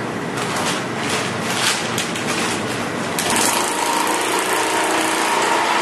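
Industrial bigbag (FIBC) sewing machine running: a steady motor hum with rustling of the woven bag fabric as it is handled, then about three seconds in the machine starts stitching with a louder, steady whine.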